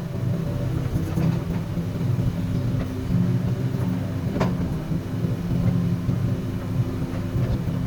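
Komatsu PC200 hydraulic excavator's diesel engine running steadily, with one sharp knock a little past halfway.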